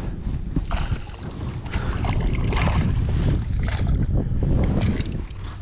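Wind buffeting the microphone in a heavy, uneven rumble, with several short bursts of splashing water.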